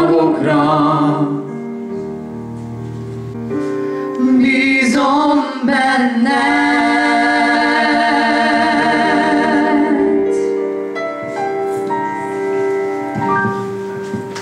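A young woman and a young man singing a duet into handheld microphones over a sustained chordal accompaniment, with long held notes in the middle. The song fades out near the end.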